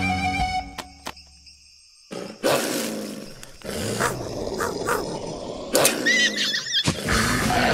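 Cartoon sound effects: background music fades out, then after a brief hush a loud, noisy animal-like roar runs for about four seconds, with a short wavering high squeal near its end. Music returns near the end.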